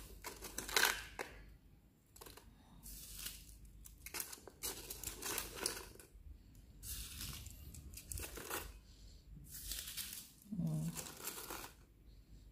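Scraps of cut paper rustling and crinkling in a series of short bursts as they are handled and dropped into a plastic bottle lined with filter paper.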